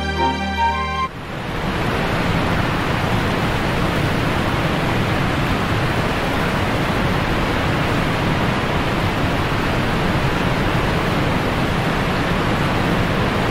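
Music plays for about the first second, then gives way to a steady, even rushing noise with no pitch or rhythm.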